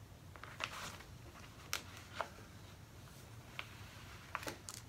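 Faint, scattered rustles and light ticks of hands handling a book being hand-sewn: paper pages folded over and a fabric cover closed, and sewing thread drawn out.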